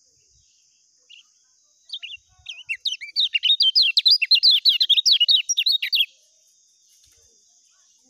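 Kecial kuning (yellow white-eye) singing. A single chirp about a second in is followed, from about two seconds, by a fast, unbroken run of high, quickly rising and falling notes for about four seconds that stops abruptly. This is the rapid continuous 'ngejos' song.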